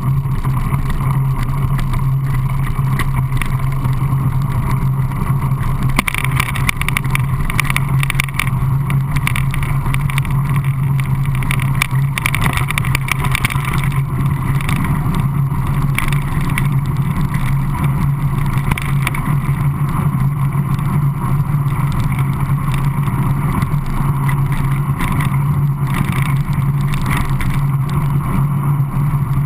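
Mountain bike rolling over a gravel track, its knobbly tyres crunching on loose stones and the bike rattling over the bumps, under steady wind rumble on the camera's microphone.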